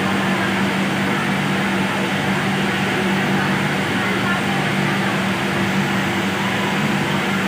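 Steady din of industrial sewing machines running together on a garment-factory floor, with a constant low hum underneath.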